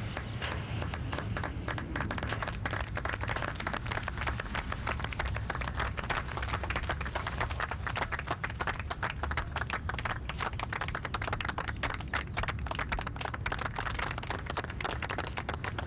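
Small group of people clapping and applauding, many quick, overlapping claps running on steadily.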